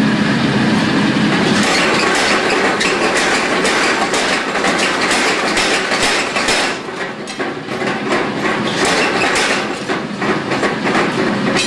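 Hand hammer striking a hot chisel that cuts crosshatch serrations into the hot steel jaws of blacksmith's tongs: a fast run of blows from about two seconds in, over a steady rushing noise.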